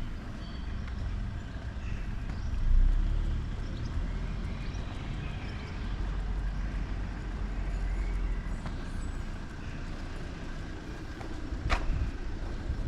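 Street ambience dominated by the low rumble of motor traffic, swelling as a vehicle passes about three seconds in, with a sharp knock near the end.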